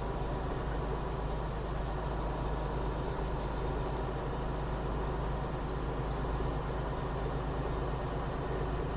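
Semi truck's diesel engine running steadily with tyre and road noise while driving, heard from inside the cab.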